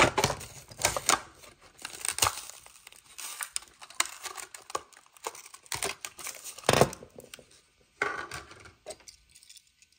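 A toy car's blister pack being torn open by hand: the cardboard card rips and the clear plastic bubble crinkles in irregular bursts, thinning out near the end.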